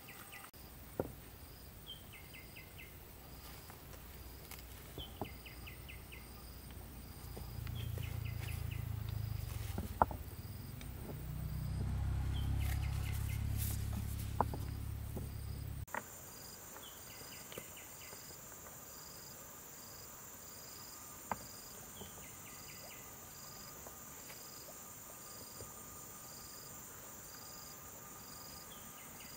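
Insects chirping outdoors in a steady rhythm, a pulse about once a second, with a short run of quick clicks every few seconds. A few sharp knocks sound now and then, and a low rumble swells in the middle and cuts off suddenly.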